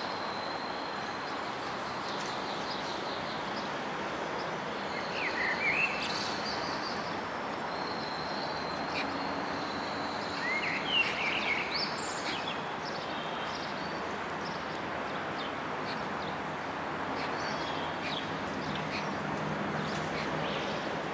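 Steady outdoor background hiss with birds chirping now and then, most clearly in two clusters of quick rising chirps about five and a half and ten and a half seconds in.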